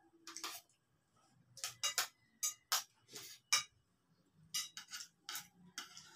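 Spoons and forks clinking and scraping against plates during a meal: about a dozen short, irregular clinks, some ringing briefly.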